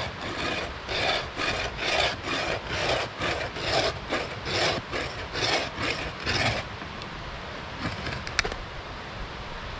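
Bow saw blade cutting through a length of wood, the wood drawn up and down over the saw held fixed on the ground, in even rasping strokes about three a second. The sawing stops after about six and a half seconds, followed by a few faint clicks.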